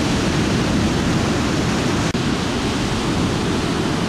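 Steady roar of ocean surf breaking, with a heavy low rumble, cutting out for an instant about halfway through.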